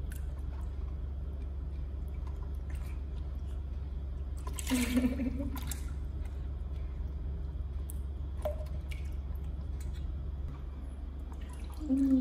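Water sloshing and lapping with small splashes as a baby monkey swims and paddles in a plastic basin, over a steady low hum. About five seconds in there is a brief louder splash with a short voice.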